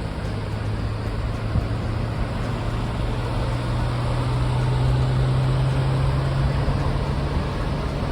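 Car driving, with steady road noise and a low engine hum that rises slightly in pitch partway through.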